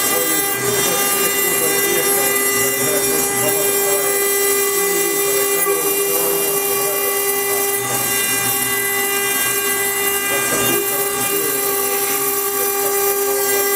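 CNC router spindle running at a steady whine while its engraving bit mills a water-cooled stone slab, with a constant grinding hiss under the tone.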